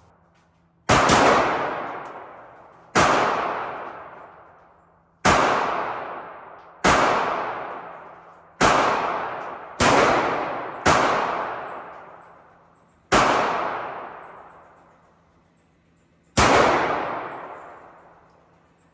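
Nine single gunshots fired one at a time at an uneven pace, one to three seconds apart. Each sharp crack rings out and fades over about two seconds.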